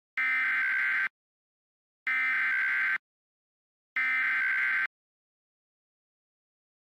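Emergency Alert System SAME header: three identical bursts of warbling two-tone digital data, each about a second long with a second of silence between them. It is the coded header that opens a new alert.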